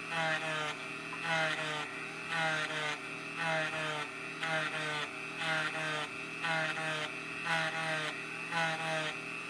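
Dremel rotary tool running with its grinding drum taking a light cut off the lamination outer diameter of a pancake armature turned in an armature lathe. It is a steady whine with a rasping grind that swells about once a second, falling in pitch on each swell.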